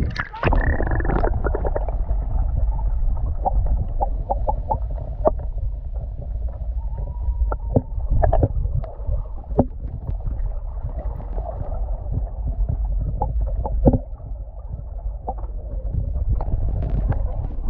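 Kayak paddling on open water: paddle strokes splashing, with scattered short knocks over a steady low rumble.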